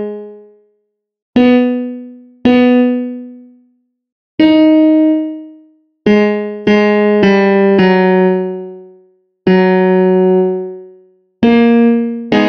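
Software piano (FL Studio FLEX "Plain Piano" preset) sounding single notes one at a time, about nine in all, each struck and left to fade, with short silences between. These are notes previewed as they are clicked into a piano roll while a chord part is being built.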